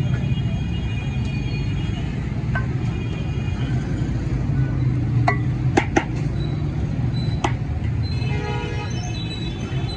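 Busy street ambience: a steady low rumble of traffic, with a few sharp clinks of plates and serving utensils against the steel tray about halfway through, and a couple of brief held tones.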